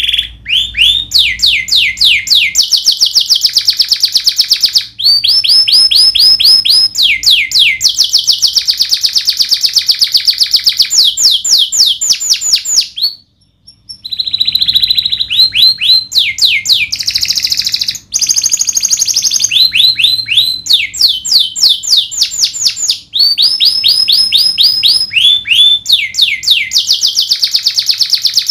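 Domestic canary singing a loud, continuous song of fast rolls and trills, each a run of rapidly repeated sweeping high notes, with a short pause about halfway.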